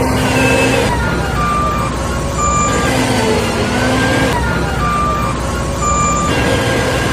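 Electronic engine sound effect from a toy construction vehicle: a steady engine rumble with short paired beeps, the whole pattern looping about every three and a half seconds.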